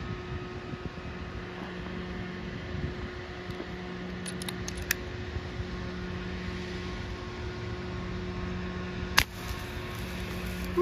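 Brocock BRK Ghost air rifle, set to high power, firing once: a single sharp crack about nine seconds in, over a steady low hum. A few faint clicks come between four and five seconds in.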